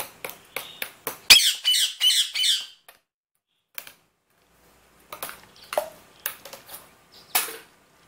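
Indian ringneck parakeet playing with hard plastic toys in a plastic basket: a run of sharp clicks and knocks, a heavy thump about a second in, then a harsh rasping sound for about a second and a half. More plastic knocks and rattles come in the second half.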